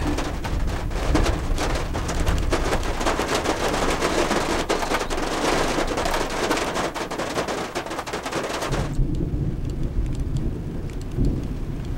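Steady rain pattering, a dense stream of drops over a low rumble of thunder. About nine seconds in the sound turns suddenly muffled, leaving mainly the low rumble, as heard from inside a camper.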